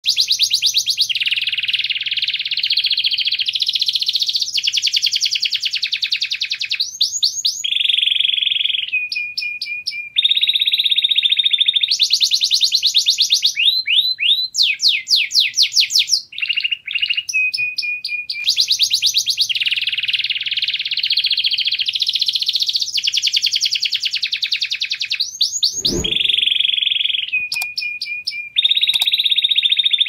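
Domestic canary singing a long, unbroken song of rapid trills. It moves every second or two from fast buzzy rolls to clear held trills and quick rising and falling sweeps. A short low thump comes about 26 seconds in.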